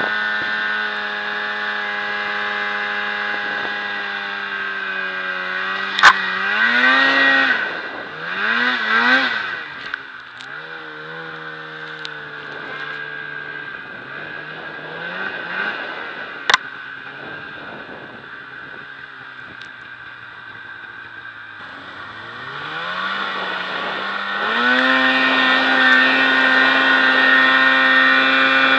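Snowmobile engine heard from the rider's seat, running at a steady pitch, then revving up and down several times, easing to a lower, quieter pace for a stretch, and climbing back to a steady higher pitch near the end. Two sharp knocks stand out, one a few seconds in and one about halfway through.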